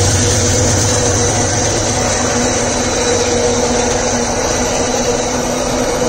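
Freight train's iron-ore gondola wagons rolling past on steel rails in a steady, continuous rumble, with the diesel locomotive's engine drone moving away.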